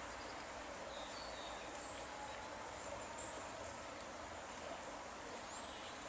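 Steady faint hiss of flowing river water, with a few short, faint, high-pitched bird chirps.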